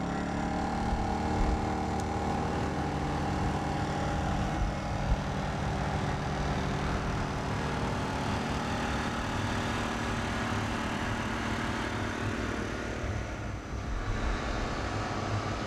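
Two inverter generators, a Honda EU2000i and a Predator 2000, running together on their small four-stroke engines, giving a steady, multi-toned drone. It measures about 66 to 67 dBA at 23 feet.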